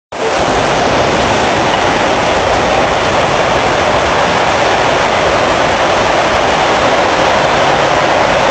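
Floodwater rushing in a fast torrent down a stone-paved street, a loud, steady roar of flowing water.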